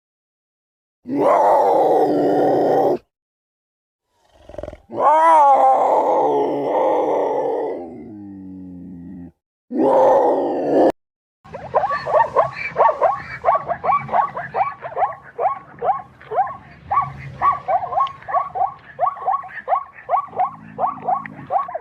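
Recorded wild animal calls played one after another: several separate roars of a couple of seconds each, then a long run of quick, repeated calls, two or three a second.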